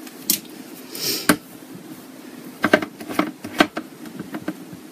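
Small clicks and rustles from plastic makeup containers being handled. There is a short hiss about a second in, a sharp click just after it, and a quick run of clicks around the middle.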